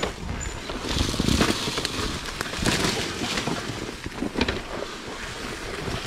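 Husqvarna enduro dirt bike descending a steep rocky trail at low revs, with uneven crunching, knocking and rattling as the tyres and chassis go over loose rocks and dry branches.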